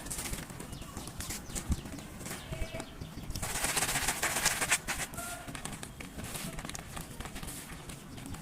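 Block of gym chalk being crushed, crackling and crunching. The crumbling grows dense and loudest for about a second and a half, a few seconds in.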